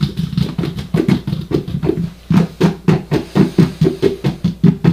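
Amplified electromagnetic pulses from a hand-cranked stepper-motor noise instrument: homemade coil pickups over two stepper motors, heard through an amplifier as a train of low, buzzy clicks as the crank is turned slowly a few steps at a time. The pulses come unevenly at first, pause briefly about two seconds in, then run on steadily at about five a second.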